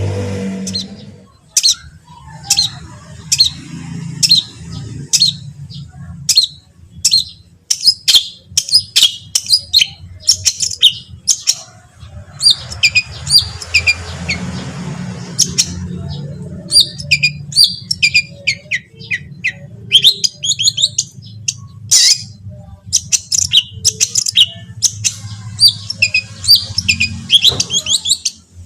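Long-tailed shrike (cendet) singing: a fast run of sharp, high notes and chattering phrases, with short gaps between bursts. A steady low hum runs underneath.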